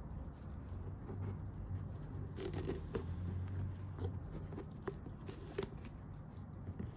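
Rustling and crinkling of packaging being opened and handled by hand, with scattered light clicks and knocks, over a low steady hum.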